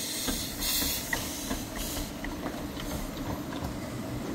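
Small narrow-gauge steam locomotive, Bunty, moving slowly, hissing steam in bursts from low by its cylinders over a steady low rumble. The hiss is loudest about a second in, and there are scattered light clicks from the wheels on the track.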